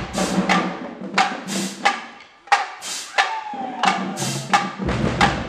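Marching band drumline playing a cadence: snare, tenor and bass drums with crash cymbals, in a driving rhythm with sharp accented hits about twice a second over the low thud of the bass drums.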